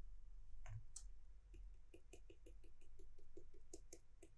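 Faint clicking of a computer mouse: a click or two, then a quick run of about a dozen clicks at roughly four a second.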